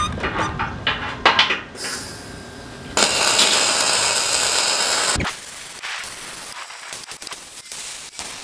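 MIG welder arcing on mild-steel plate, running on argon/CO2/oxygen shielding gas. A few sharp clicks come in the first two seconds, then a steady crackling sizzle of a weld bead runs for about two seconds from three seconds in. Short spits and clicks of stop-start welding follow.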